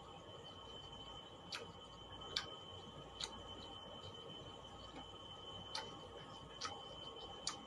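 Eating sounds from someone chewing crispy fried milkfish by hand: about six sharp, irregular clicks and smacks, over a faint steady high-pitched whine.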